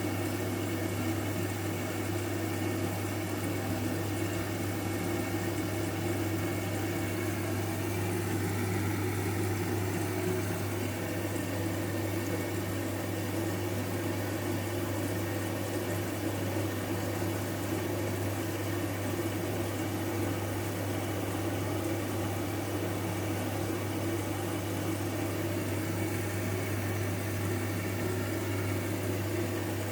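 Washing machine running through a blanket wash, a steady low hum with no change.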